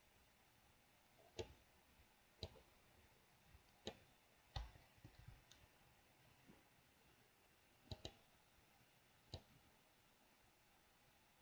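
Faint clicks of a computer mouse and keyboard during editing, about seven sharp separate clicks with a quick pair about eight seconds in.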